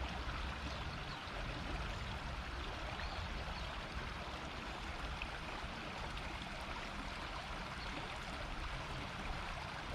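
A shallow river murmuring over stones: steady running water with a fine babble.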